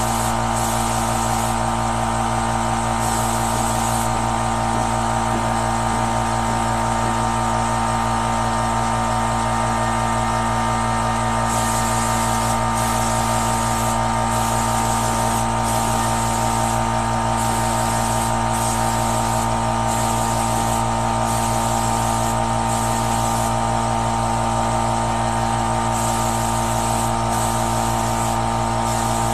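Portable air compressor's electric motor and pump running steadily, feeding a paint spray gun. The high hiss of the spray gun's air cuts in and out as the trigger is pulled and released.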